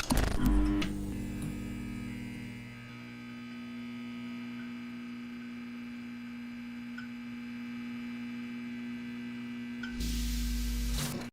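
Household water plumbing humming with a steady tone and its overtones after a loud start, then a short rush of hissing water flow near the end before it cuts off.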